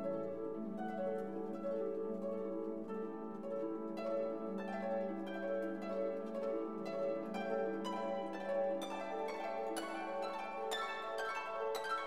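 Instrumental background music with plucked string notes over held tones, the notes coming thicker toward the end.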